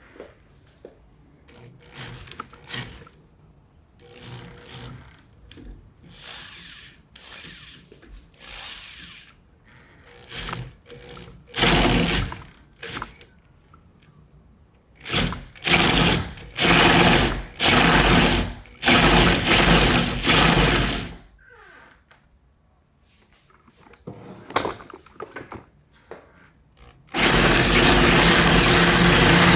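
Power drill with a 1-inch paddle bit boring into the wooden door edge to enlarge a latch hole, run in short bursts of a second or two with pauses between, then held running steadily near the end.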